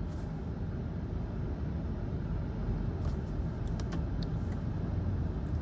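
Steady low rumble inside a stationary car's cabin, with a few faint clicks about three to four seconds in.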